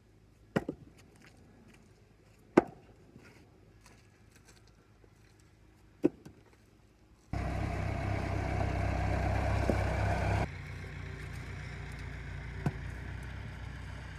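Three sharp wooden knocks a few seconds apart, like logs dropped onto a pile. About seven seconds in, an engine comes in suddenly and runs loud and steady for about three seconds, then drops to a quieter steady run.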